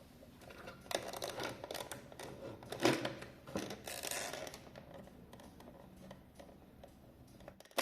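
Clicks, scrapes and rustling of a screwdriver and a plastic quartz cuckoo-clock movement being handled, with a sharper click about three seconds in.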